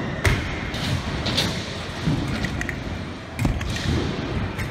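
Freestyle scooter wheels rolling over the ramps of a skatepark bowl, broken by about four sharp clacks and thuds of the scooter striking and landing, in a large hall.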